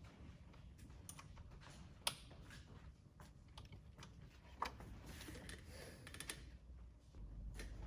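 Faint, scattered light clicks and taps of hand work on a motorbike brake during bleeding, with sharper ticks about two seconds in and again a little before five seconds, over a low steady hum.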